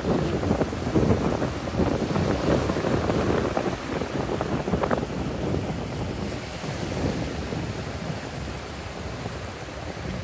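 Wind buffeting the microphone in gusts, easing in the second half, over small waves washing onto a pebble beach.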